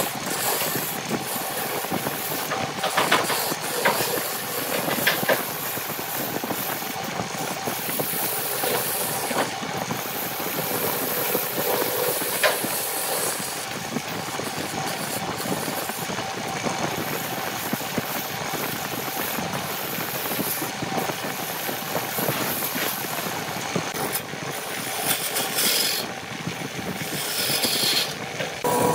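Wood lathe running while a hand-held turning tool cuts into a spinning wooden cup blank: a steady hiss of the cut, with a few sharp ticks.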